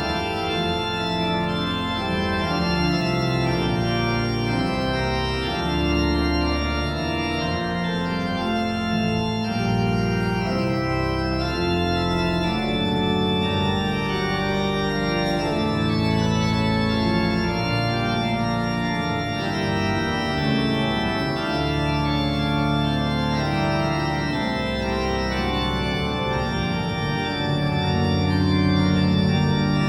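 Organ playing a slow prelude in sustained chords over a held bass line.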